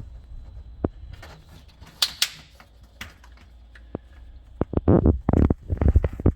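Plastic drain hose and sink-trap fittings being handled and pushed together: scattered clicks and knocks, a brief rubbing hiss about two seconds in, and a quick run of knocks and scrapes near the end.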